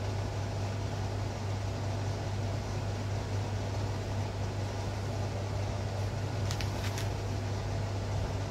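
Steady low hum under an even hiss: the room's background noise, with two faint soft ticks about six and a half seconds in.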